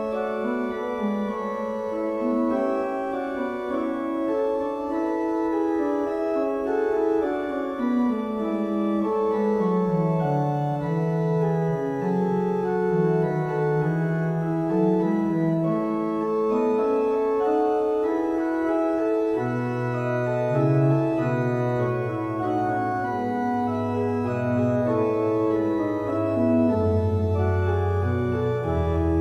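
Church organ played solo: slow, held chords over a moving bass line, with a deeper bass line coming in about two-thirds of the way through.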